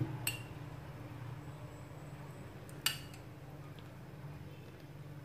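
Metal spoon clinking against a glass bowl while scooping coffee syrup: a couple of light clinks at the start and one sharper clink about three seconds in, over a low steady hum.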